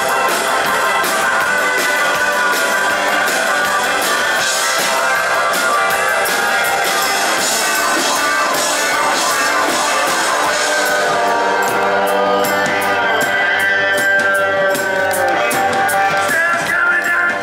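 Live band playing a rock-style song, with electric guitars and drums.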